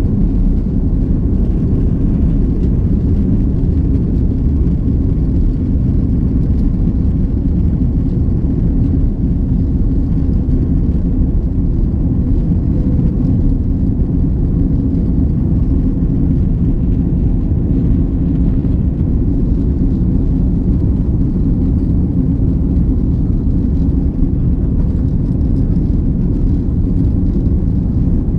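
Airliner jet engines at takeoff thrust with rushing air, heard from inside the passenger cabin as a loud, steady low rumble during the takeoff and initial climb.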